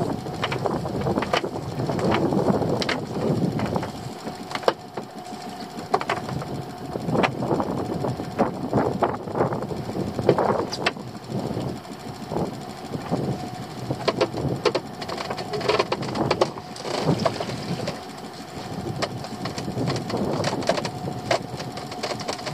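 Prawn pot rope being hauled in hand over hand over the side of a small open boat, a short rustling pull roughly once a second, over a steady hum.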